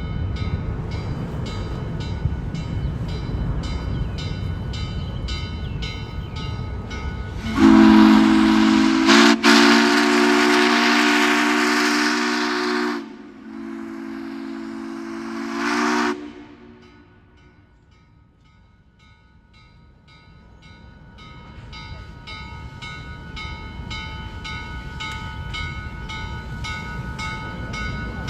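Steam locomotive whistle blowing one long blast and then a shorter one, with a hiss of steam. Under it runs the steady rhythmic clatter of the moving train, which fades away after the whistle and builds back up near the end.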